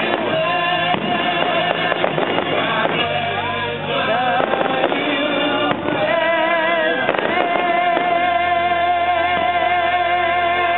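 Music with a singing voice, ending in a long held, wavering note, played along with a fireworks display; sharp fireworks bangs cut through it several times in the first half.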